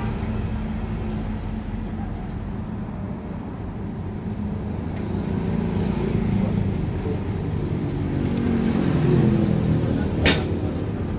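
A motor vehicle engine running steadily, its pitch shifting a little, with a single sharp click or knock about ten seconds in.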